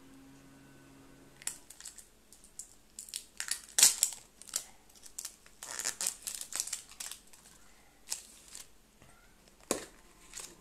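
Crinkling and clicking of plastic as a child's hands work open a plastic surprise egg and its plastic wrapping, in irregular rustles and sharp snaps, busiest in the middle with the loudest snap about four seconds in.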